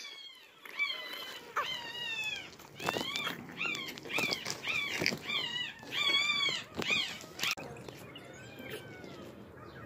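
A 12-day-old micro bully puppy crying: a quick string of short, high-pitched cries, each rising and falling, about two a second, with a few fainter cries near the end.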